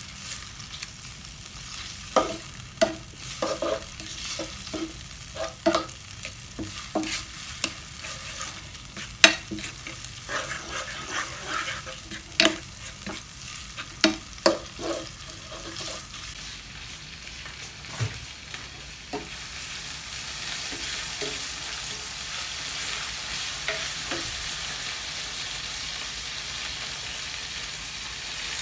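Food frying in a pan while a cooking utensil stirs it, knocking and scraping against the pan many times. After about two-thirds of the way, the knocking stops and the sizzle grows louder and steady.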